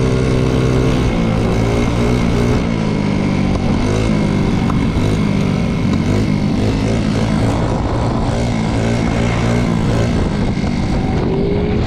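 Moped engine running while riding, its pitch rising and falling several times as the throttle is opened and eased off, with wind noise on the microphone.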